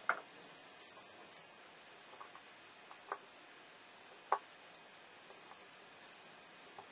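Plastic Lego bricks clicking and snapping as pieces are handled and pressed together: scattered sharp clicks, the loudest just after the start and about four seconds in.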